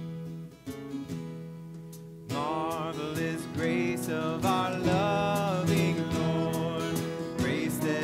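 Church worship band with guitars and piano playing a hymn's introduction; a little over two seconds in the music grows louder as voices begin singing the first verse.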